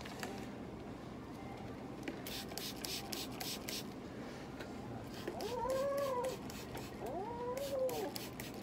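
Domestic cat yowling twice, two long drawn-out calls that rise and then fall, about five and seven seconds in, as it is held down for wound treatment. Before that comes a quick run of short hissing sounds.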